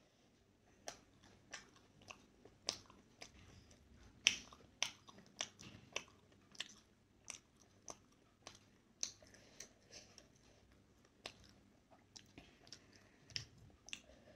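Mouth sounds of chewing steamed momo dumplings: irregular wet smacks and clicks, about one or two a second.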